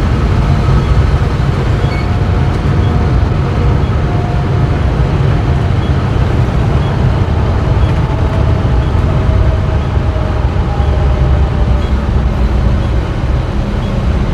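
Steady road and engine rumble inside a passenger vehicle's cabin while it is being driven, heaviest in the low end, with no distinct events.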